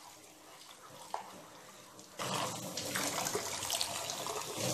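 Tap water running and splashing into a new unglazed clay pot held in a steel kitchen sink as the pot is rinsed by hand. The splashing starts suddenly about two seconds in, after a quieter stretch.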